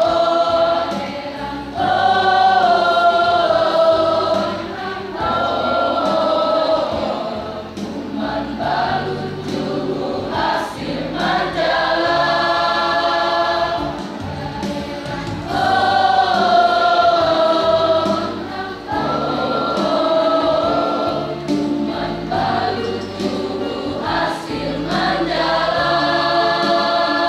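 A school choir of many voices singing together, in held phrases a few seconds long that swell and fall throughout.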